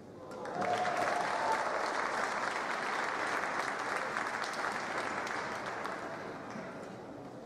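Spectators' applause in an indoor sports hall, swelling up within the first second, holding, then slowly fading.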